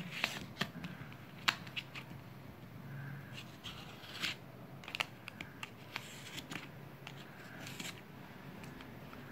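A pen scratching and tapping on the stiff paper base of a paper cup, heard faintly as scattered sharp clicks and a few short scrapes.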